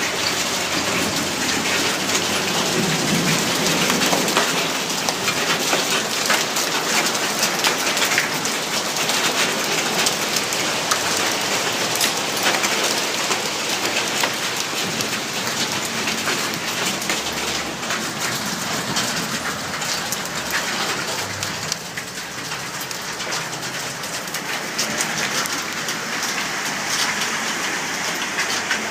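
Hailstorm: heavy rain with hailstones striking hard surfaces, a dense patter of sharp clicks over a steady hiss of falling rain, easing slightly a little past two-thirds of the way through.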